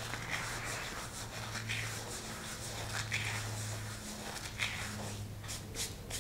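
Ajwain (carom seeds) being crushed between rubbing palms: soft rasping swishes repeating about every second and a half, over a steady low hum, with a few light clicks near the end.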